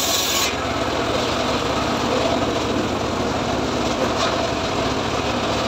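Engine of a homemade circular saw bench running steadily with the blade spinning. A high hiss from the blade cutting teak stops about half a second in, leaving the steady machine noise.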